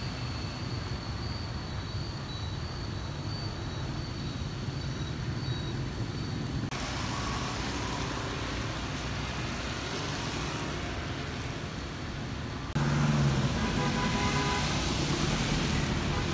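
Street traffic: motorbikes and cars passing through a city intersection, a steady wash of engine and tyre noise. A faint thin high whine runs through the first few seconds, and the sound changes abruptly about seven seconds in and again about thirteen seconds in, getting louder the second time.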